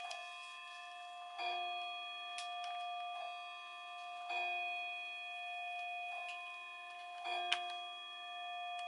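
Background music: a sustained bell-like chord struck again about every three seconds, with a few sharp ticks over it.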